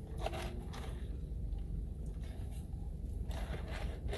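Steady low hum inside a car cabin, with a few faint scrapes and clicks as a plastic straw is worked up and down through the domed lid of an iced latte cup.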